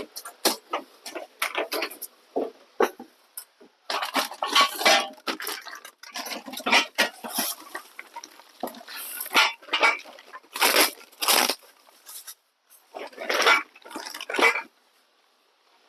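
Irregular rustling and metallic clattering of short tube exhaust headers and their packaging being handled, dying away in the last second.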